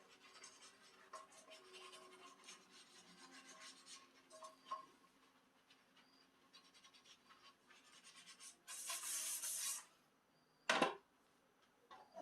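Dishes being scrubbed by hand, a faint scratchy rubbing with light clinks; near the end a short hiss of running water for about a second, then one sharp clunk of a dish.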